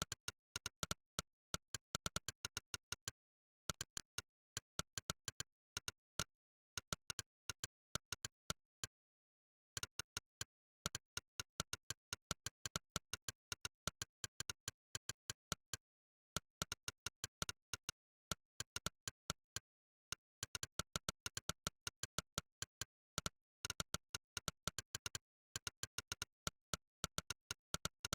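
Monkeytype's synthetic 'click' keystroke sound, one short sharp click per keypress, in quick runs of several clicks a second. The runs break off in brief pauses between bursts of typing, the longest about a third and two thirds of the way in.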